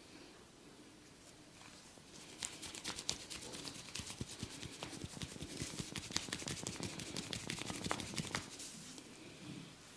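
Barber's hands working on a head and hair in a massage: a fast run of crackling taps and rubbing begins about two seconds in, lasts about six seconds, then dies away.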